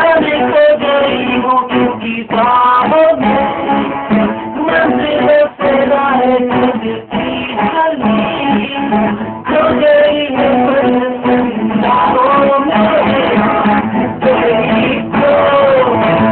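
Guitar strummed and plucked, with a voice singing or humming the melody over it.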